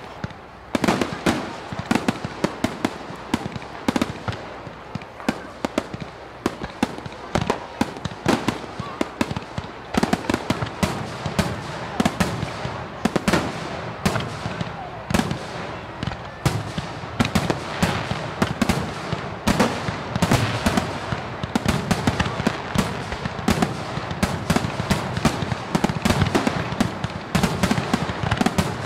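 Fireworks display: bangs and crackling bursts in quick, overlapping succession. The bursts come thicker and heavier in the second half.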